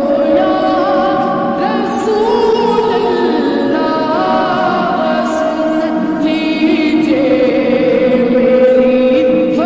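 Islamic devotional vocal ringtone: several voices sing long held notes that bend and slide in pitch, in a chant-like melody.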